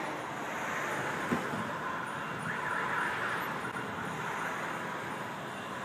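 Steady outdoor background noise of distant road traffic, an even hum without distinct events.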